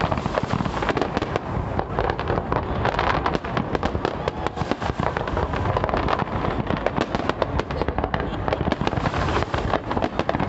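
Fireworks display: a dense, unbroken barrage of rapid bangs and crackles.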